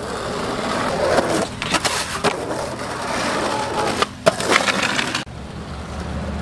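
Skateboard wheels rolling on rough asphalt, with sharp wooden clacks of the board popping and landing. About four seconds in, a hard knock of the board against a concrete curb. Just after five seconds the sound drops to quieter rolling.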